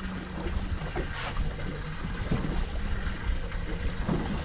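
Wind buffeting the microphone aboard a boat on open water, a steady low rumble with a faint constant hum underneath.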